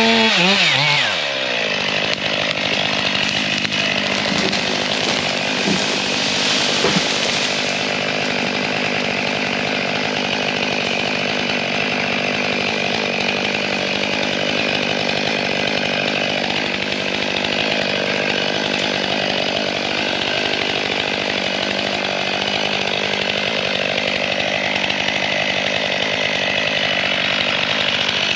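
Chainsaw engine dropping from high revs to idle about a second in, then idling steadily.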